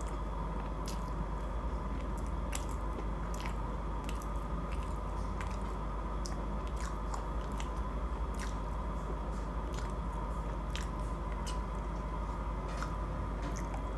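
A person chewing a mouthful of food with the mouth closed, picked up close on a clip-on lapel microphone: irregular wet clicks and soft crunches, a little over one a second, over a steady background hum.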